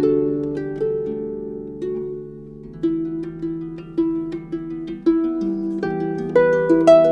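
Solo harp music: plucked notes ringing out over held low notes, a new pluck roughly every second, growing louder near the end.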